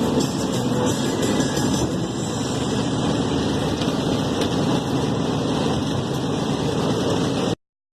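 Steady running and road noise of a 1989 Ford Del Rey with its 1.6 CHT engine, cutting off suddenly near the end.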